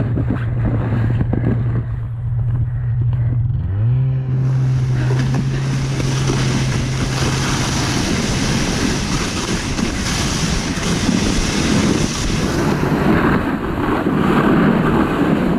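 Wind rushing over the microphone and snow spraying and hissing under a sled towed at speed behind a snowmobile, with the snowmobile's engine drone steady, rising in pitch about four seconds in, then sinking under the rush after about eight seconds.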